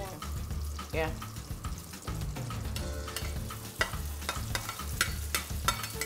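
Chopped onions sizzling in hot palm oil in a metal pan while a spatula stirs them, scraping and clicking against the pan several times in the second half.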